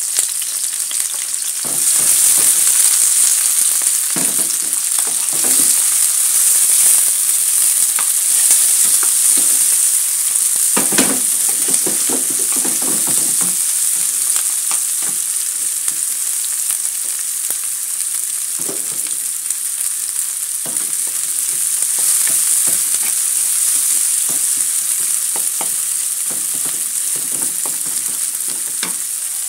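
Sliced shallots, garlic and chillies sizzling in hot oil in a pan, stirred and scraped now and then with a wooden spatula; the sizzle gets louder about two seconds in. The aromatics are being sautéed until fragrant.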